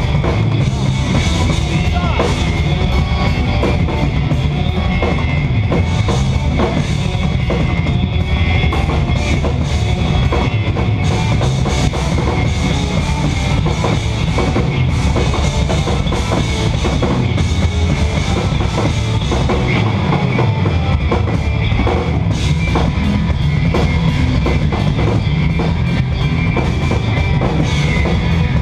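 Live instrumental progressive metal played loud by two eight-string electric guitars and a drum kit, with dense, rapid drumming, as heard from the crowd.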